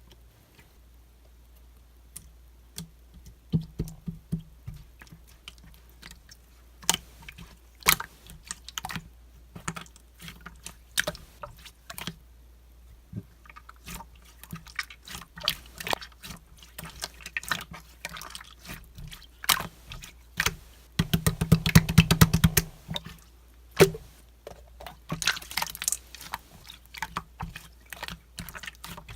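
Green gold-glitter slime being squished and stretched by hand, making sticky wet clicks and pops, with a dense run of rapid popping about two thirds of the way through.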